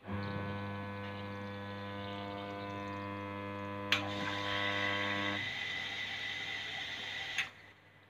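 LG front-loading washing machine starting a wash: a steady electrical hum comes on at once and stops about five seconds in. About four seconds in there is a click, then water hisses into the detergent drawer and cuts off suddenly near the end.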